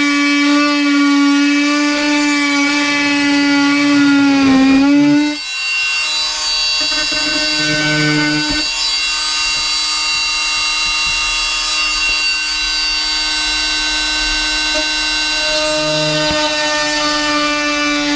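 Electric power tool cutting a hole through the van's wooden panelling, its motor running with a steady whine. The pitch sags as it bogs down about five seconds in, then it picks up and runs on steadily.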